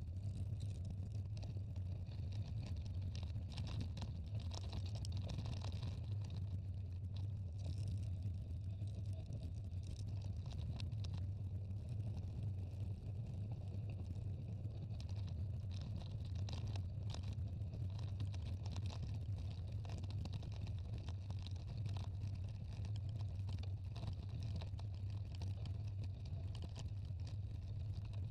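Mountain bike rolling fast downhill on a loose gravel track: a steady low rumble of wind and vibration on the mounted camera's microphone, with a light crackle of tyres on stones and scattered small clicks and rattles.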